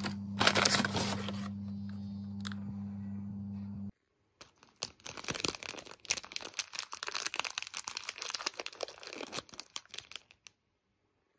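Plastic sweet packet, a bag of Cadbury Mini Eggs, crinkling and crackling in quick bursts as it is pulled open and handled by hand for about six seconds. Before that, a carrier bag rustles briefly over a steady low hum.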